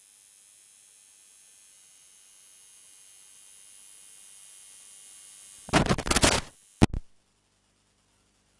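Faint electrical hiss that slowly grows louder, then a loud burst of crackling static nearly six seconds in and a second short burst just after, after which the sound cuts out.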